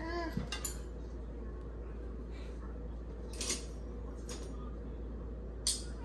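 Metal silverware clinking in a dishwasher's cutlery basket as a toddler pulls pieces out: a few separate sharp clinks, spread a couple of seconds apart.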